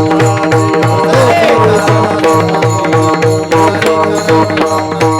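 Devotional kirtan accompaniment with no words: a harmonium holds steady chords over a hand drum beating deep strokes about two and a half a second, with small cymbals clinking along.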